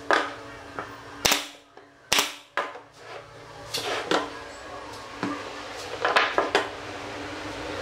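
Sharp wooden clacks and knocks as small hexagonal wooden frames are set down and pushed against each other on a wooden workbench, about ten in irregular succession, with a quick cluster of three near the end. A faint steady hum runs underneath.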